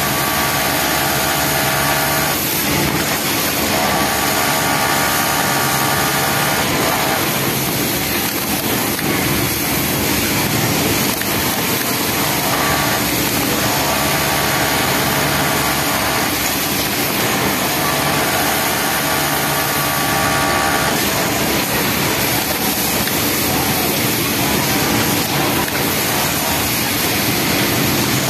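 Yamato industrial flatlock sewing machine stitching a T-shirt hem in runs of two to three seconds, its whine starting and stopping several times over a loud, steady machine din.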